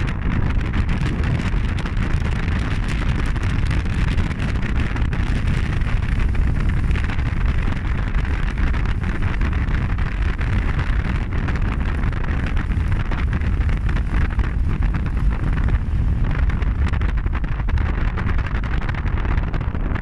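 Strong storm wind buffeting the microphone: a loud, steady low rumble with a rushing hiss over it.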